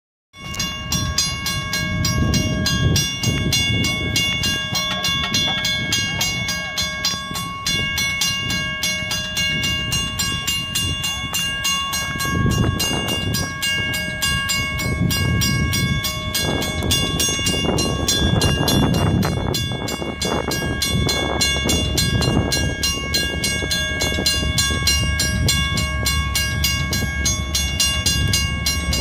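Railroad grade-crossing warning bell ringing with rapid, even strikes that hold a steady ringing tone, with the gates down. An uneven low rumble swells under it from about halfway through.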